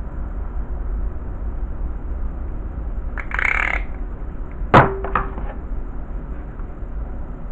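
A single sharp knock or clink a little under five seconds in, with a brief low ring after it and a fainter second tap, over a steady low background rumble and hiss. It is preceded by a short hiss about three seconds in.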